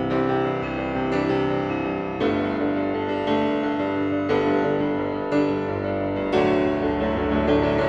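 Background music of sustained keyboard chords, a new chord coming in about once a second.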